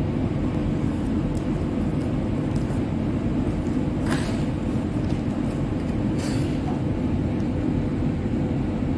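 Steady low rumble of a running vehicle, even in level, with two faint brief hisses about four and six seconds in.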